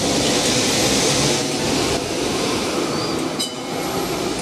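Melbourne B-Class articulated tram running past at close range, a steady rumble and hiss from its wheels and running gear. There is a short clatter about three and a half seconds in.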